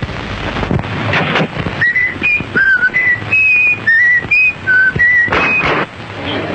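A person whistling a short, repeated tune of clear, high notes, starting about two seconds in. Some knocks and bursts of noise come before and during it.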